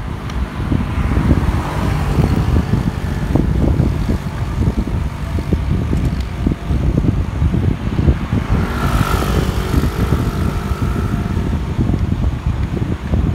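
Wind buffeting the microphone of a camera on a moving bicycle, a steady rough rumble. About nine seconds in, a motor vehicle passes on the road.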